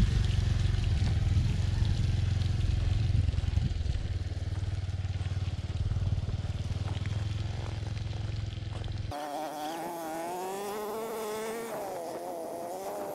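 Motor vehicle engine running steadily under way, a strong low hum. About nine seconds in it cuts off abruptly, and a wavering pitched sound takes over.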